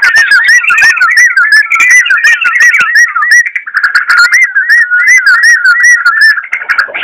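Yellow-vented bulbul (trucukan) singing a continuous stream of quick, looping whistled notes, several a second, each curling up and down in pitch.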